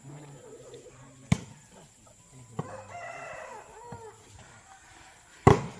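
Sharp smacks of a volleyball being struck by hand: one about a second in, a lighter one midway, and the loudest just before the end. A rooster crows for about a second in the middle.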